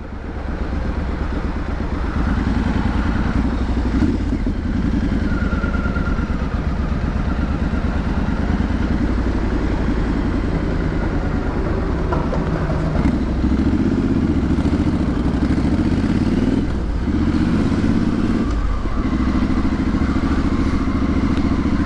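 Triumph Street Scrambler's parallel-twin engine and exhaust under way at town speed, the revs rising and falling several times with brief drops in the second half, as in gear changes.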